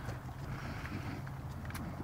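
Staffordshire bull terrier licking peanut butter off its nose: scattered short wet tongue clicks and smacks, one sharper click near the end, over a steady low rumble.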